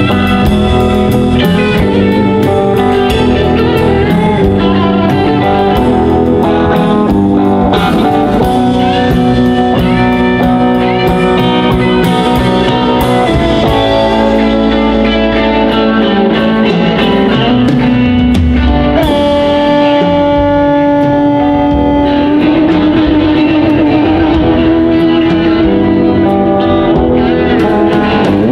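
Live band music: two electric guitars, a hollow-body and a Telecaster-style solid-body, over upright bass and drum kit, playing steadily.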